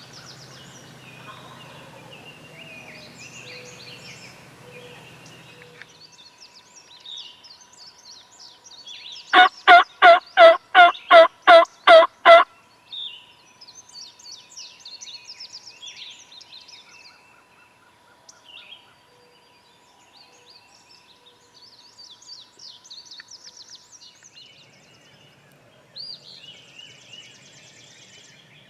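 A game call blown close by: eight loud, evenly spaced notes, about three a second, a few seconds in. Songbirds chirp and sing around it.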